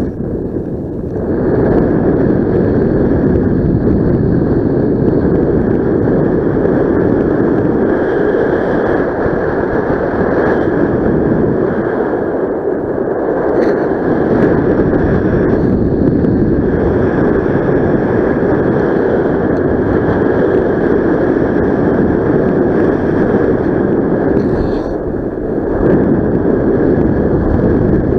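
Wind rushing and buffeting over the microphone, a steady loud noise heaviest in the low range, from the airflow of a paraglider in flight. It eases briefly about a second in and again near the end.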